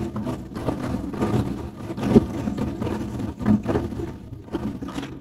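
Large Chinese lion-dance drums beaten with sticks in a fast, uneven rhythm of deep booming strikes, with one especially hard hit about two seconds in.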